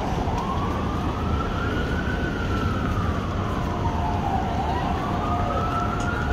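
Emergency vehicle siren in a slow wail, rising and falling about every four seconds over steady city street noise. A steady lower tone sounds alongside it in the second half.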